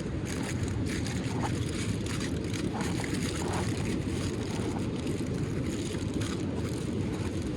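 Steady low rumble of wind buffeting the microphone, with a few faint scattered crackles.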